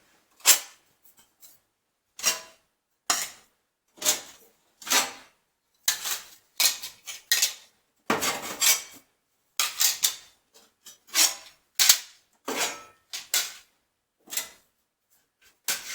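Loose metal tools and parts in a tool box drawer being picked up, shuffled and set down. They clink and rattle in short bursts, about one or two a second.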